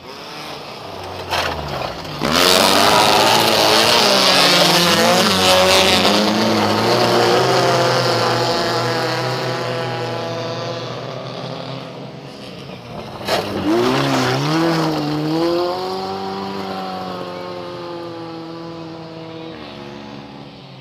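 Two race cars pass close one after the other on a dirt circuit, each engine revving up and down through its gears and fading away. The first arrives about two seconds in, louder, with a rush of noise; the second comes about thirteen seconds in, starting with a sharp knock.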